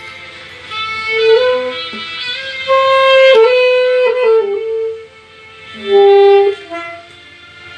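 A slow melody played on a single instrument: held notes that step up and down, with short pauses near the start and about five seconds in.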